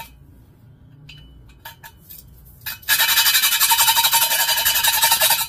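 Exhaust valve being lapped into its seat in a Briggs & Stratton 5 hp cast block: coated with gritty lapping compound, it is spun rapidly back and forth by a suction-cup lapping stick rubbed between the palms. Starting about three seconds in, the valve face grinds against the seat with a loud, rapid, gritty rasping that lasts about two and a half seconds. A few light clicks come before it.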